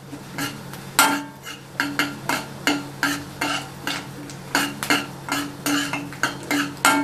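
A steel spatula scraping and clinking against a stainless-steel kadhai while stirring whole spices in hot oil. The strokes come in a steady run of about three a second.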